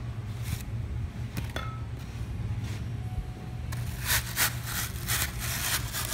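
Hand carving tool scraping and rasping foam. For the first few seconds there are only a couple of light clicks, then quick scratchy strokes start about two-thirds through, roughly three a second. A steady low hum runs underneath.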